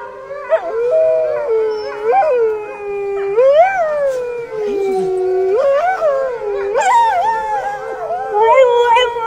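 A dog howling in long held notes, its pitch swooping up and back down several times.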